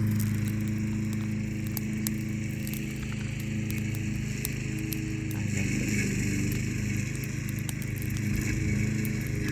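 A small engine running steadily, with scattered sharp crackles and pops over it.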